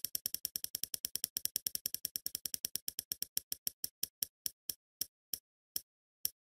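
Spinning-wheel ticking: a fast run of sharp clicks, about ten a second, that slows steadily to roughly one every half second as the wheel comes to rest.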